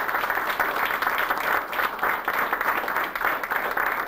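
A small group of people applauding: dense, steady hand clapping.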